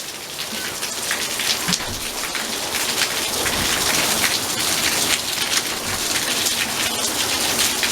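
Heavy rain pouring down steadily, a dense hiss of drops splashing on hard surfaces.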